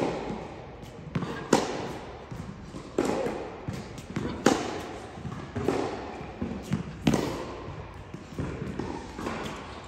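Tennis ball struck by a racket in a rally, with a sharp hit about every second and a half and softer ball bounces between. Each hit rings on in the reverberant indoor tennis hall.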